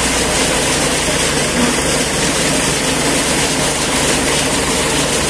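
Wheel loader's diesel engine running steadily and loudly, close by, while its bucket is raised over a dump truck's bed.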